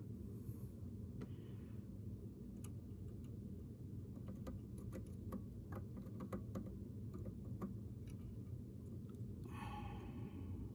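Faint, scattered small clicks and taps as a soldering iron tip and a thin wire are worked against a circuit board pin, over a low steady hum. A brief hiss comes near the end.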